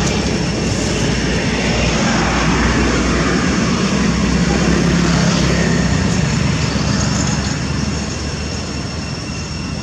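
A steady, loud low engine drone that eases off a little near the end, with faint steady high-pitched tones above it.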